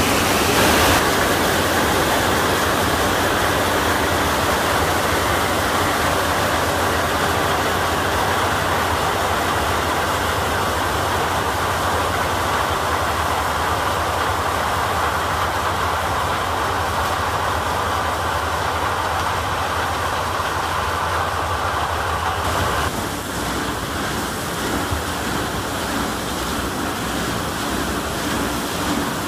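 Claas Lexion 760 TerraTrac combine harvester running at work in maize, its engine and threshing machinery making a steady, dense mechanical noise with a low hum. A little over 20 seconds in, the sound drops slightly in level and the hum changes.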